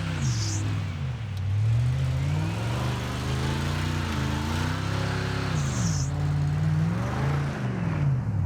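Car engine revving up and down, its pitch rising and falling several times.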